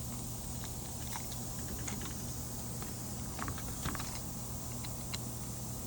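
Scattered light clicks and taps of hands working a spline roller tool and screening into a door screen frame, over a steady low hum.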